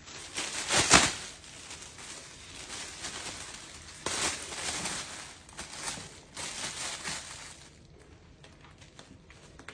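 A thin plastic crockpot liner bag crinkling and rustling as it is shaken open and smoothed flat by hand. The loudest crackle comes about a second in, with more bursts of rustling after that, then only faint ticks near the end.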